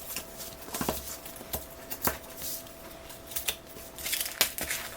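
A new screen protector's packaging being opened and handled: scattered clicks, taps and crinkling of plastic and card, busier near the end.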